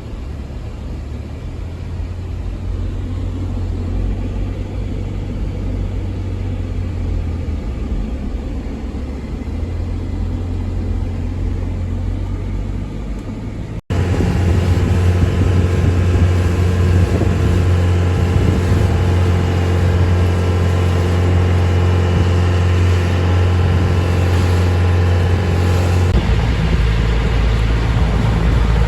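A vehicle engine runs steadily under a low rumble. An abrupt cut about 14 s in is followed by a louder section where the engine's steady hum is plainer.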